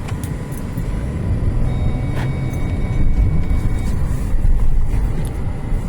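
Car running and moving through deep snow, heard from inside the cabin as a steady low rumble that grows a little louder about three seconds in.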